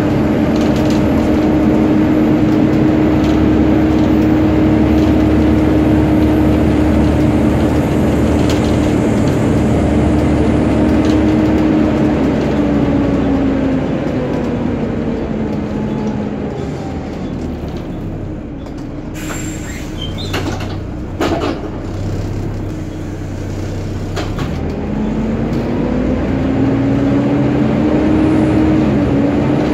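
Volvo B7TL double-decker bus's cooling fan whining over the engine and road noise, a steady hoover-like tone. About twelve seconds in the whine slides down in pitch and fades, a few short clicks follow, and near the end it climbs back up.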